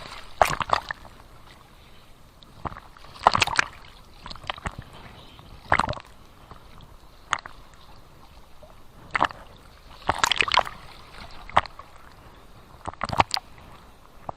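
Small sea waves splashing in short, irregular splashes every one to three seconds, with a faint steady wash of water between them.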